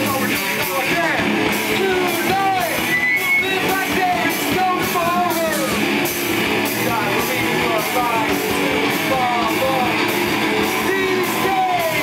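Pop-punk band playing live: distorted electric guitars, bass and a drum kit at a fast beat, with shouted vocals over the top.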